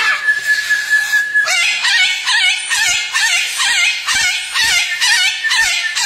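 Moluccan cockatoo screaming: one long held high screech, then a quick run of short shrill calls, several a second, with a few soft thumps that fit its wingbeats.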